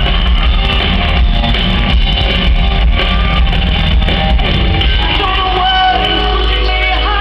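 Live pop band music with female vocals, loud and bass-heavy, recorded from the arena audience; the sung melody comes through more clearly about five seconds in.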